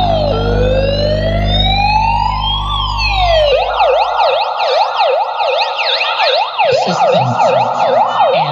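Electronic siren sound effect played through a DJ sound system during a speaker check: a slow wail rising and falling over a steady low bass drone, switching a few seconds in to a fast yelp of about three sweeps a second.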